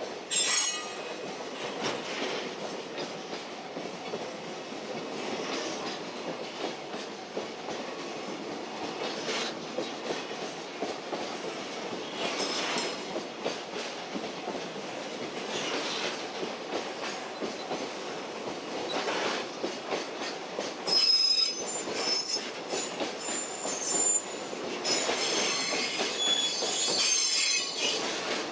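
Freight train rolling past, its wagons making a steady rumble with clicks over the rail joints. In the last third, high-pitched wheel squeals come and go.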